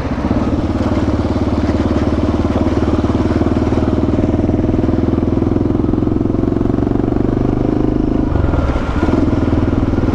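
Motorcycle engine running steadily under way, with a brief drop a little over eight seconds in, as the throttle is eased or a gear is changed, before it picks up again.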